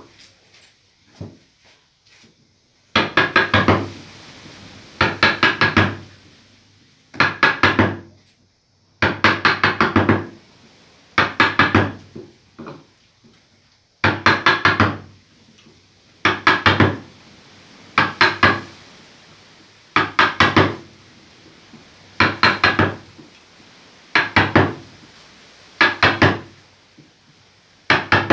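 Wooden mallet striking a carving gouge into a wood relief panel. It comes in bursts of five or six quick blows, about one burst every two seconds, starting about three seconds in after a few faint taps.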